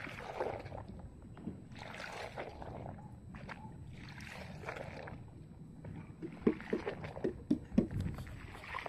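Soapy water sloshing in a tub as a rubber gas mask is scrubbed by hand: slow swishes about every two seconds, then a quicker run of small splashes over the last few seconds.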